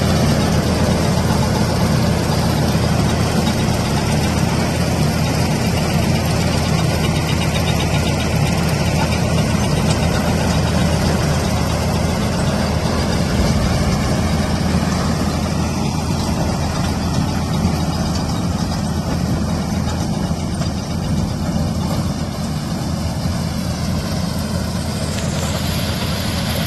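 John Deere 4020 tractor engine and the pull-type corn sheller it tows, running steadily together in the field as a continuous low machine drone.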